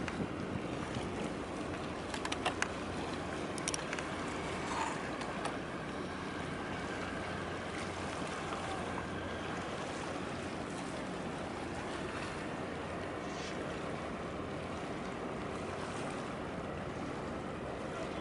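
Steady harbour ambience across open water: a continuous wash of noise over a low hum. A few sharp clicks come about two to four seconds in.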